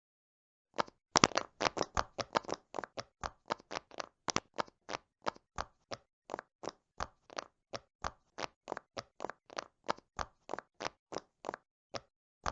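Silicone pop-it fidget toy bubbles pressed one after another: a quick, even series of short pops, about three to four a second, starting about a second in and stopping shortly before the end.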